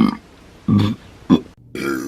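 A woman burping four times in quick succession, each burp short and pitched, from drinking carbonated soda.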